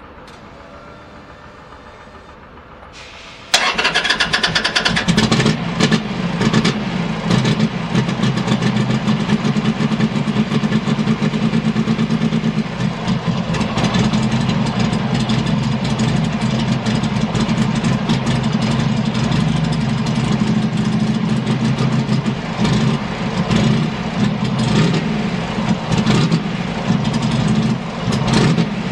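Buell XB9R Firebolt's air-cooled V-twin started on the electric starter, catching on the first press about three and a half seconds in, then idling steadily.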